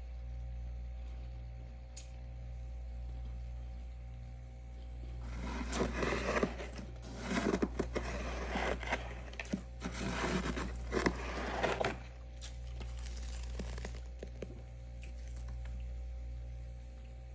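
Freezer frost being scraped and crunched by a gloved hand, a dense run of crunching scrapes from about five seconds in to about twelve seconds, with a few fainter ones after, over a steady low hum.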